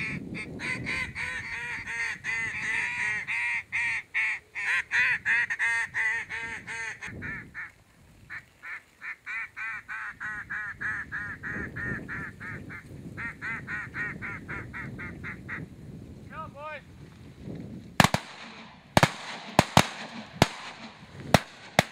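A flock of geese honking overhead, many overlapping calls at first and then thinning to a sparser run of honks. Near the end, a volley of about seven shotgun shots in quick succession.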